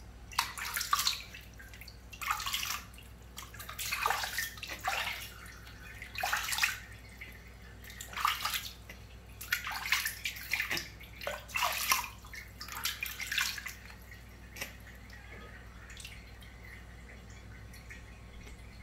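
Water splashing in a tub as hands scoop it over a newborn monkey being bathed, in short splashes every second or so. The splashing stops about three-quarters of the way through, leaving only a few faint drips.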